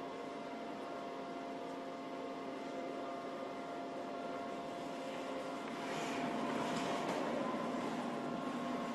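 Steady hum of the earthquake shake table's machinery with several steady tones, then about six seconds in a louder rushing rumble as the table starts shaking the straw bale house.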